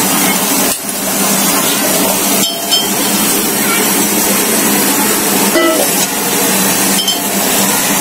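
Hot oil sizzling loudly and steadily as sliced okra shallow-fries and chopped onions fry in the pans.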